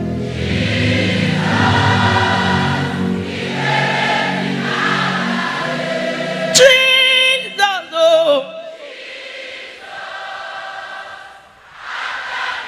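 Gospel choir singing over a sustained instrumental accompaniment. About halfway through, a solo voice comes in loud with a wavering run, then the accompaniment drops out and softer choir singing carries on.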